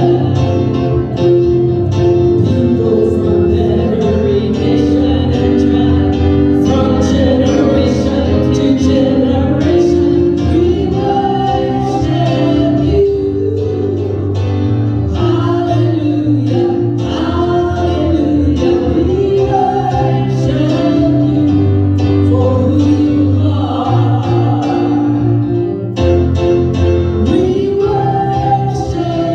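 Gospel praise music: a group of singers over band accompaniment with a strong bass and a steady beat.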